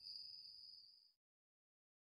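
Steady chirping of crickets in a night-time ambience, fading out over about a second and then cutting to dead silence.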